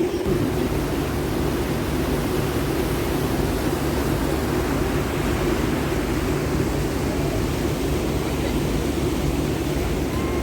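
Tour catamaran's engines running steadily under way, a constant low drone under an even rush of wind and water.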